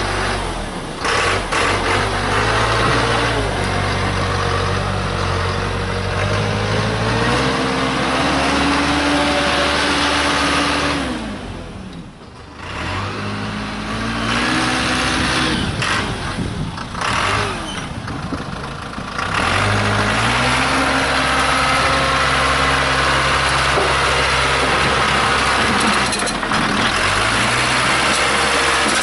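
Case 580C backhoe's engine running and revving up and down. Its speed rises a few seconds in, drops about twelve seconds in, surges unevenly for a while, then climbs again and holds steady from about twenty seconds in.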